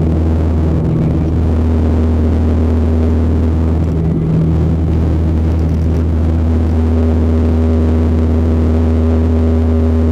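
Widerøe Dash 8 turboprop engines and propellers running steadily, heard from inside the cabin, as a loud low drone with a few steady humming tones while the aircraft rolls on the ground.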